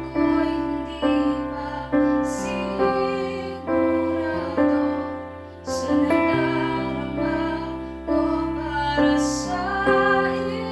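A woman singing a slow ballad in Tagalog over piano accompaniment, the piano striking a chord about once a second; her long notes waver.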